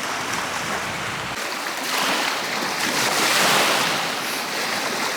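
Small waves washing on the beach shore, a steady rush that swells about halfway through.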